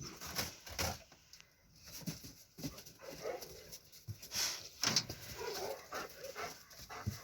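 Dogs whining and whimpering in short wavering calls, twice, among scattered clicks and knocks.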